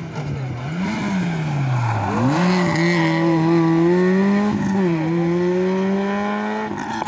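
Peugeot 106 rally car's four-cylinder engine coming into and out of a hairpin: engine speed falls with a quick throttle blip about a second in as it slows, then the throttle opens hard about two seconds in, a brief dip for a gear change, and the revs climb again until a sharp drop near the end. Loudest about halfway through as the car passes closest.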